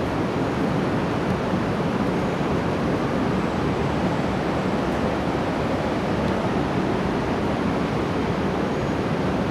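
Steady rushing ambient noise, even and unbroken, with no distinct events.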